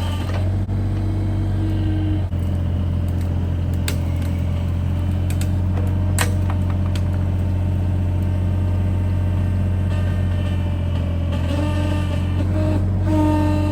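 Bobcat E32 mini excavator's diesel engine running steadily under load, with a hydraulic whine that shifts in pitch now and then. A few sharp knocks and cracks sound over it.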